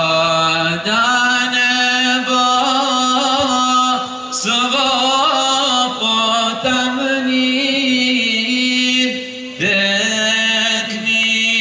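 Male vocal group singing a chant through microphones: a lead voice ornaments the melody over a steady held note. The lead line pauses between phrases about four seconds in and again near the end.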